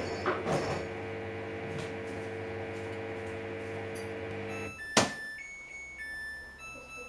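Samsung washing machine humming steadily, the hum stopping about two-thirds of the way in, then a sharp click and the start of a short electronic beep tune from the control panel, the kind of melody the machine plays when a cycle finishes.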